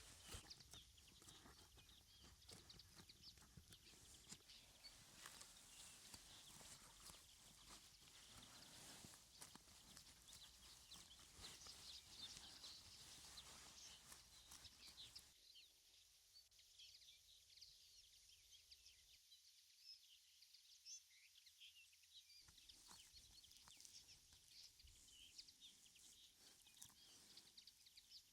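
Near silence: faint outdoor ambience with scattered small rustles and ticks.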